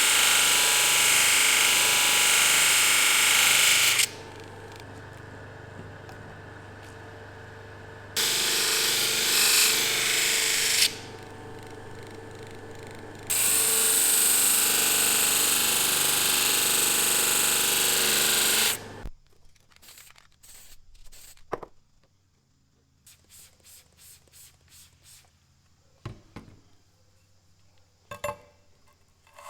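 Power tool grinding or abrading the old chisel in three long loud passes, the motor running on more quietly in the gaps between them. It stops about 19 seconds in, leaving only scattered light clicks and handling knocks.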